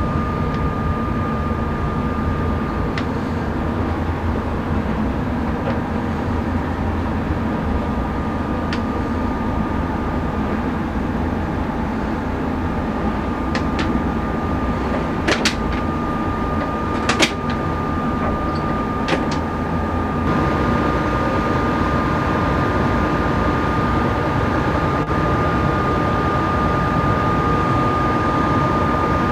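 Steady engine drone with a constant thin high whine over it, and a few sharp clicks or knocks around the middle.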